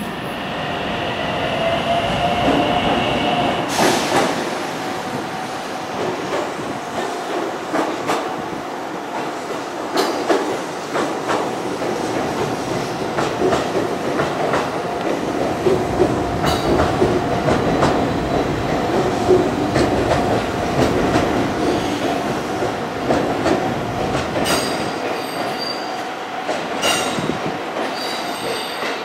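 Train wheels rolling over steel rails: a continuous rumble broken by irregular clicks as the wheels cross rail joints. A steady high whine runs under it, with a higher wheel squeal in the first few seconds.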